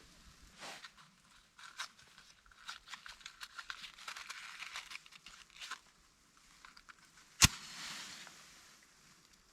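Crinkling, rustling handling noise made up of many small irregular clicks, then one sharp loud snap about seven seconds in, followed by a short fading hiss.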